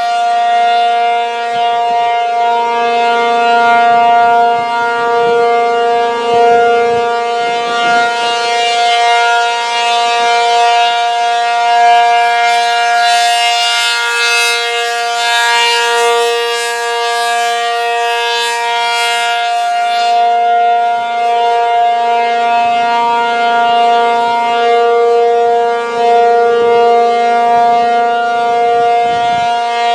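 ACA P-50 rotating outdoor warning siren sounding the Alert signal: one steady, unwavering tone held throughout, loud and rich in overtones. The sound grows brighter and fades again over several seconds as the rotating head sweeps past.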